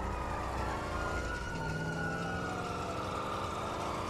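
Video-game police sirens wailing in a slow rise and fall, over the low running of a car engine.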